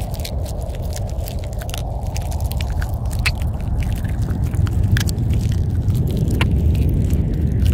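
Chewing and crunching sound effect, made of many irregular short clicks, over a steady low rumbling ambient drone.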